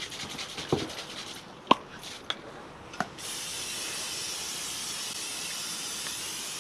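A few light knocks, then an aerosol spray can hissing in one steady burst of about four seconds that starts and stops suddenly.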